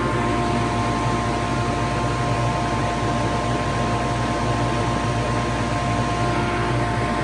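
Grain dryer running: a loud, steady mechanical drone with a low hum and a few steady whining tones over it.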